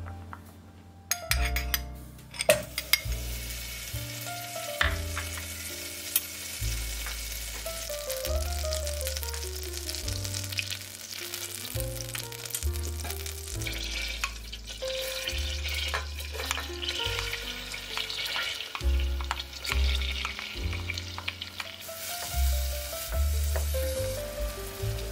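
Butter, then chopped onion, sizzling as they fry in a stainless steel saucepan, with a spoon stirring and clicking against the pan. The sizzling starts about a second and a half in and goes on steadily, over background music.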